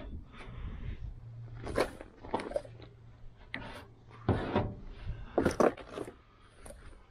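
Plastic spreader scraping body filler across the steel lower quarter panel of a 1972 Chevy Nova in several short strokes, pressing the filler into the pinholes.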